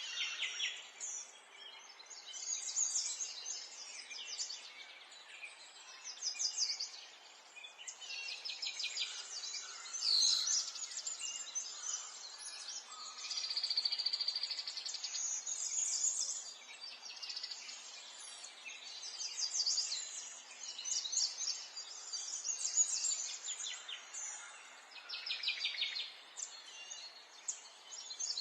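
Many small songbirds chirping and trilling continuously, with quick repeated notes overlapping one another, over a faint steady background hiss.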